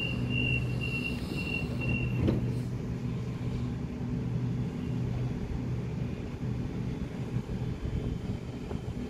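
Door-closing warning beeps of a Sydney Trains double-deck electric train, a rapid high beep about two and a half times a second, stop about two seconds in. A single thump follows as the doors shut. After that comes the train's steady low electric hum as it starts to pull away from the platform.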